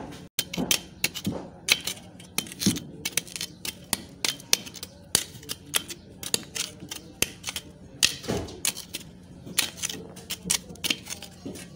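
Rapid, irregular clicking and tapping, several knocks a second, as a long bar is worked against rusted steel, over a faint steady low hum.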